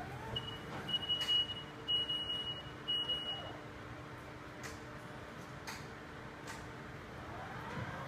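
Hy-Brid HB-1230 scissor lift's motion alarm beeping as the lift drives: a high steady beep sounds four times over the first three and a half seconds, then stops. A faint steady hum runs underneath.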